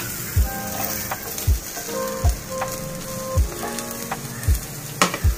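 Sliced onions sizzling as they roast in a hot, smoking pan, with a sharp tap near the end. Background music with a steady low beat and a few held notes plays underneath.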